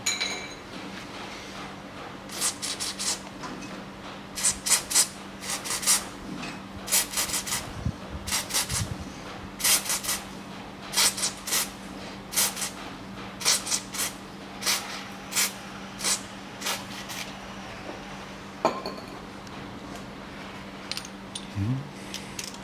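Short bursts of metallic clicking and clinking from a hand wrench turning M8 bolts into the threaded holes of a rear brake drum to pull the drum off. The clicks come in small groups every half second or so, over a steady low hum.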